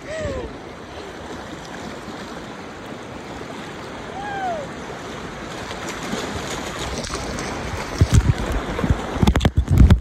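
Shallow, rocky river rushing steadily past and under an inflatable tube. A short gliding cry comes at the start and another about four seconds in. From about eight seconds in, loud low thumps and rumble from wind and handling on the phone's microphone.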